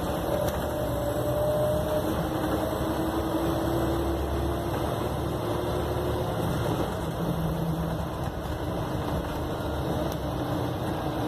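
Single-decker bus driving along, heard from inside the passenger saloon: steady engine and road rumble, the engine note drifting gently up and down as the bus changes speed.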